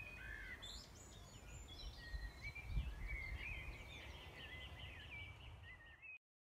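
Songbirds singing, a run of quick warbling and chirping phrases over a low steady outdoor rumble; it cuts off abruptly near the end.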